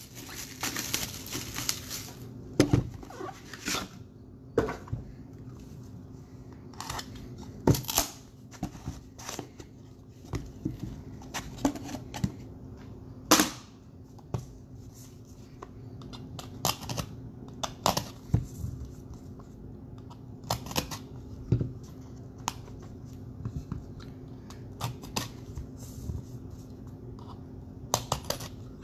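Cardboard trading-card packaging being opened by hand: tearing for the first couple of seconds, then scattered taps, clicks and knocks of boxes being handled. A box cutter slits a seal near the end.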